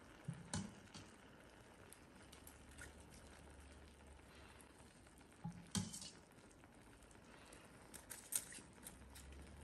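Faint sizzling and pattering as cool sugar syrup is ladled over hot, freshly baked walnut baklava: the syrup soaking into the crisp filo. Two light knocks, one about half a second in and one near six seconds.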